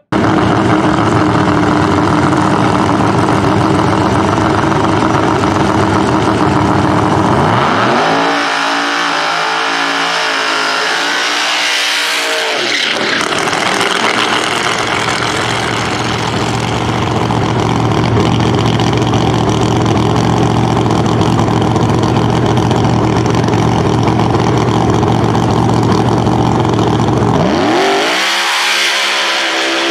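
Pro Stock drag car's V8 running at high revs through a burnout, loud and steady. Twice, about eight seconds in and again near the end, the engine note falls away and climbs back up as the revs drop and rise.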